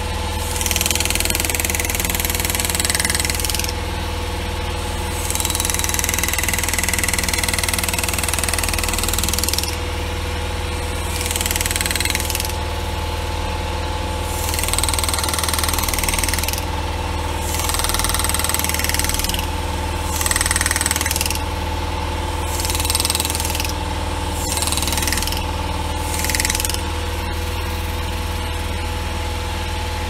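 Pneumatic hand-engraving handpiece hammering a graver into a metal door handle in repeated short runs of one to three seconds, starting and stopping as each cut is made, over a steady motor hum.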